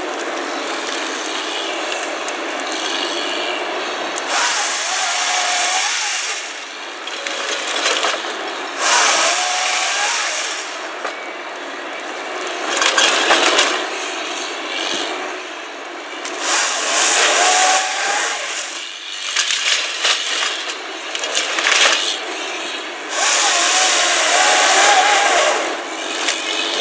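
CAT 501HD tracked harvester running, its Fabtek four-roller head processing a felled tree. Steady machine noise is broken by about half a dozen loud bursts of a second or two, each with a short rising whine, as the head's saw cuts and the feed rollers drive the stem through the delimbing knives.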